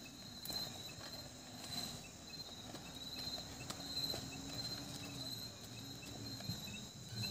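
Insects trilling outdoors in a faint, steady, high-pitched drone.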